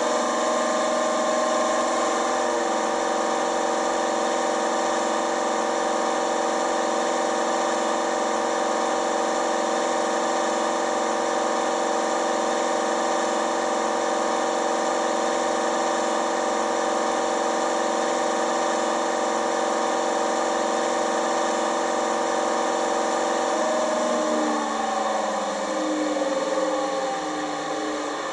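Recorded Napier Deltic diesel engine sound from a model Class 55 Deltic's DCC sound decoder, played through the model's small speaker with no deep bass. The engine runs steadily for most of the time, then its revs fall away near the end.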